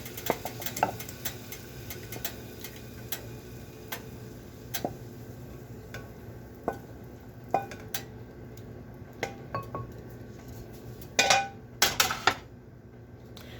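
A cooking utensil scraping and clinking against a pan as cooked lemon chicken is scooped out into a container: scattered clicks and scrapes, with a cluster of louder knocks about eleven to twelve seconds in.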